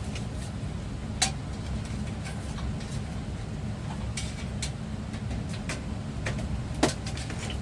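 Scattered sharp clicks and knocks of a plug and light being handled at a wall-mounted power strip, the loudest about a second in and near the end, over a steady low rumble.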